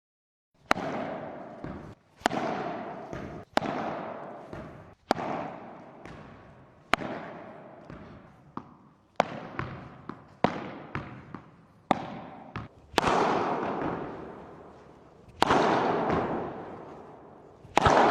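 Padel ball struck again and again by Varlion padel rackets: about a dozen sharp pops, each followed by a long echoing decay. A few come in quick pairs about halfway through.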